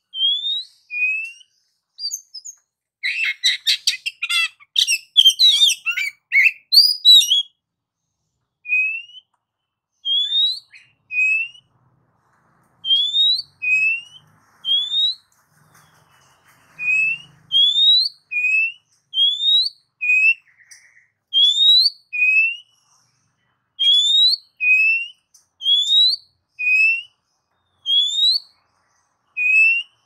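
Oriental magpie-robin singing: a repeated pair of clear whistles, a rising higher note followed by a shorter lower one, about once a second, broken about three seconds in by several seconds of fast, tumbling song.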